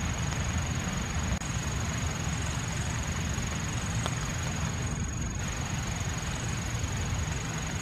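Steady rain falling on the woods and grass, an even hiss and patter, with a thin steady high-pitched tone over it.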